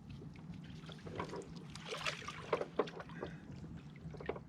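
Yamaha WaveRunner personal watercraft sitting low on the water with a steady low hum, light knocks and water sounds around the hull.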